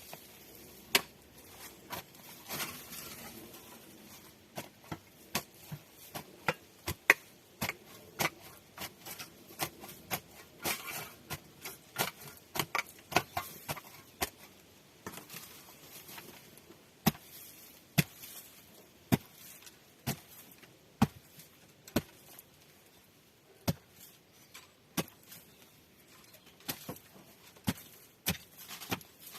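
A series of sharp knocks or clicks, dense and irregular at first, then settling to about one a second through the second half.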